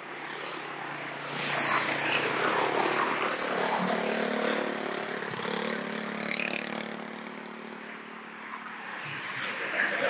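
A motor vehicle's engine passing close by: it comes up suddenly about a second in, runs with a steady hum, then slowly fades away.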